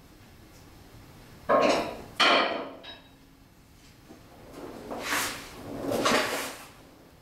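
Metalwork under a car: two sharp metal clanks with a short ring, about a second and a half and two seconds in, then two longer rasping scrapes that swell and fade around five and six seconds.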